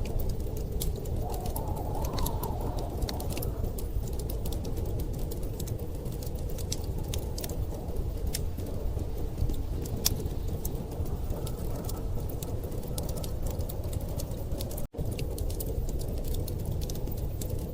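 Wood fire crackling with frequent sharp pops over a steady low rumble of storm wind. The sound cuts out for a moment about fifteen seconds in.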